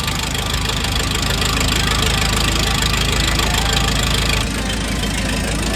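Car engine running just after a start with the catalytic converter removed, its exhaust blowing straight out of the open pipe flange: a loud, raw, unmuffled rasp. About four and a half seconds in it eases slightly.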